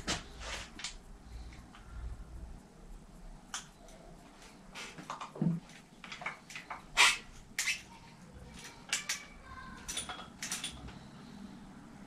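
Scattered clicks and knocks of hands and tools working on a bicycle handlebar and brake lever, with the sharpest knock about seven seconds in.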